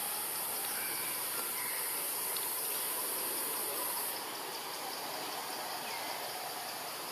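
Insects calling in a steady, high-pitched chorus that drops a little in loudness about four seconds in.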